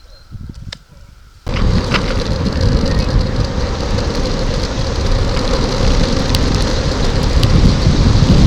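Wind rushing over the microphone while cycling, a loud steady rumble that starts abruptly about a second and a half in, after a quiet moment with a few soft knocks.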